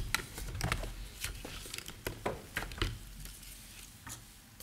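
Sheets of paper rustling and being shuffled close to a podium microphone, in short scattered bursts with a few low bumps.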